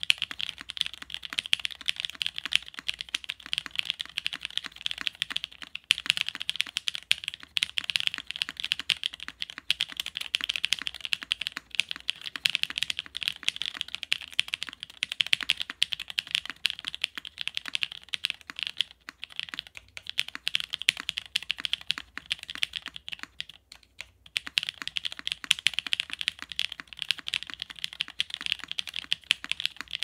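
Continuous fast typing on a Keycult No.1 Rev.2 TKL mechanical keyboard, gasket-mounted with a polycarbonate half plate and no sound dampening, fitted with lubed and filmed Creamwick linear switches (Jwick Black housings, Cream stems), a Cherry MX Black spacebar and CRP keycaps. Dense, rapid keystroke clacks, with a brief pause about three-quarters of the way through.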